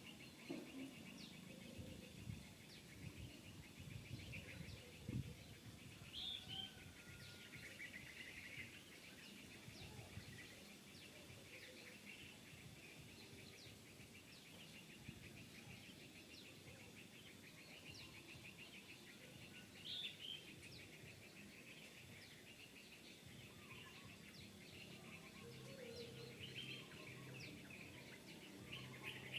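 Faint outdoor ambience: a steady, fast-pulsing insect trill with a few short bird chirps. There are some low thumps in the first several seconds.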